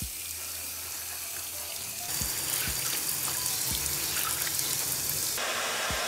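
Handheld shower spray running water onto a wet t-shirt in a bathtub as the shirt is rinsed and squeezed. About five seconds in the sound changes to a hair dryer blowing.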